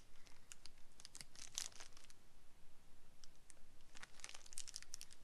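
Thin clear plastic sleeves crinkling as they are pulled off the arms of a pair of plastic sunglasses, in two bursts of crackle, one about a second in and another about four seconds in.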